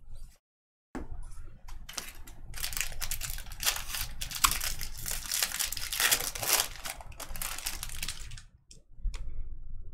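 Foil wrapper of a Bowman Draft baseball card pack crinkling and crackling as it is handled and opened. The crackling runs thick from about two seconds in and stops shortly before the end.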